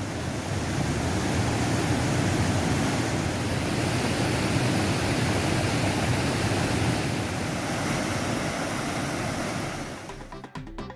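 Floodwater rushing and churning down a river swollen by continuous heavy rain and pouring over a check dam, a steady dense rush of water. About ten seconds in it gives way to a short musical jingle.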